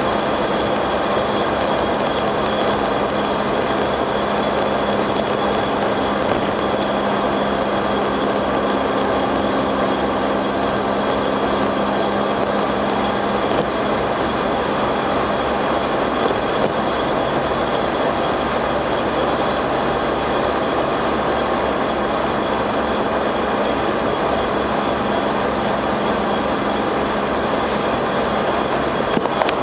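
Jeep running, most likely under way, a steady mechanical drone carrying a constant high-pitched whine and a low hum that fades out about thirteen seconds in. It is an annoying noise whose source the owner cannot locate.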